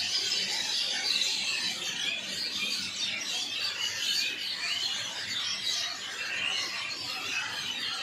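A dense chorus of many small birds chirping at once, a steady mass of short high chirps and trills overlapping without a break.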